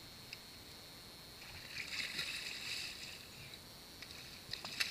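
A hooked red drum thrashing at the surface beside a kayak, splashing the water for a couple of seconds. A few sharp clicks follow near the end.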